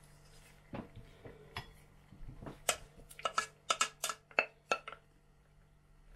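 Stainless steel pot clinking and knocking as it is handled and tipped to pour the last cheese curds into a cheesecloth-lined bowl. There are a few soft knocks at first, then a quick run of about eight sharp clinks near the middle.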